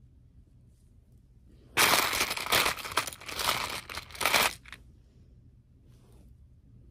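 Close rustling and crinkling handling noise right at the microphone, starting about two seconds in and stopping after about three seconds.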